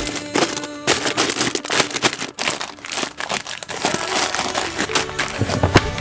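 Background music, with the crinkling and rustling of plastic snack packets and packed groceries being handled, and many sharp clicks and knocks throughout.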